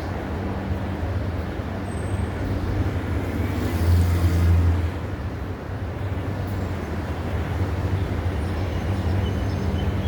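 Street traffic: a steady low engine hum under road noise, with a vehicle passing close and louder about four seconds in.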